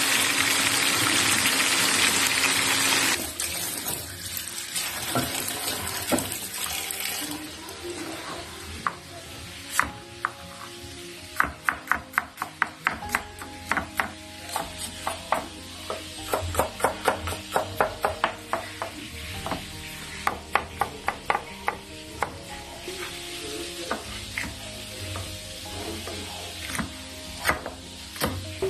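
Tilapia frying in oil in a pan, a loud sizzle for about the first three seconds that then quietens and fades. Later a kitchen knife slices onion and bell pepper on a plastic cutting board in quick runs of sharp clicks, several a second, over soft background music.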